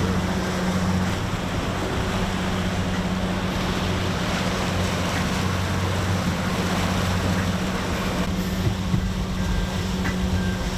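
Boat engine running with a steady low hum, under a constant rush of wind and water.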